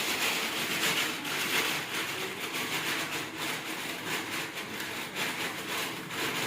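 Rapid, irregular rasping strokes, as of sawing or scraping by hand.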